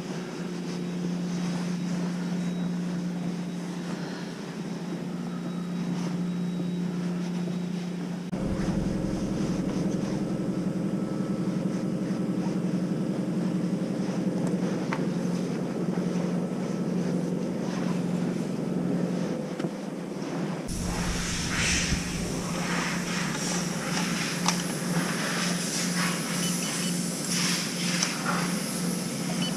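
A steady low hum. About two-thirds of the way through, irregular rustling and clattering from handling join it.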